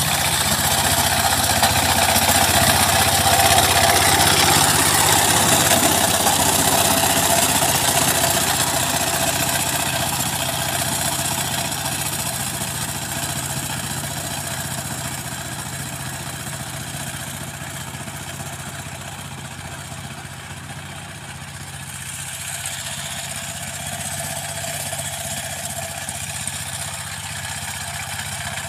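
Two-wheel power tiller's single-cylinder diesel engine running steadily under load while the rotary tiller churns dry soil. It grows fainter through the middle as the tiller moves away, then a little louder near the end.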